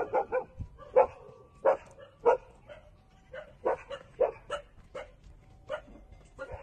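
Four-week-old puppy giving short, high-pitched whining calls: a quick run at the start, then single calls every half-second or so.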